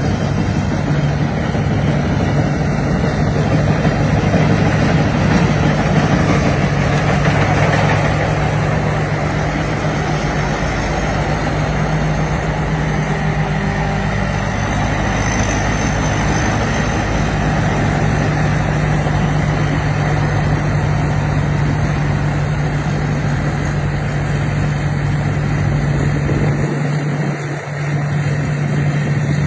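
Rice combine harvester's diesel engine running steadily with a deep, even hum, swelling slightly louder a few seconds in; the deepest part of the sound drops out briefly near the end.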